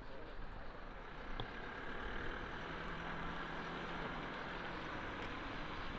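A vehicle engine running, a steady hum over outdoor noise. A low steady tone comes in about two and a half seconds in and drops away near five seconds.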